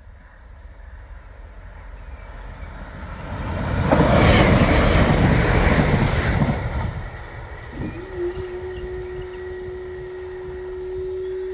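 GWR Class 166 Turbo diesel multiple unit passing close by: the rumble of its wheels and engines builds over a few seconds, peaks as it goes past, then dies away. About eight seconds in, a faint steady tone starts and holds.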